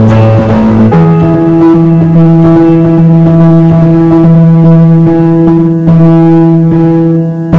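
Background music: loud, sustained pitched notes with a deep bass tone, the note changing about a second in.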